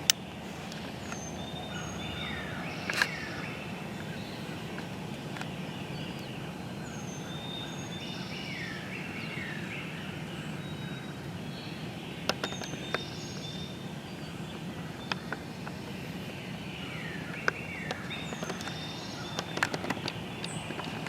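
Several wild birds calling in woodland, with repeated short falling notes and higher chirps, over a steady low background hum. A few sharp clicks come in between.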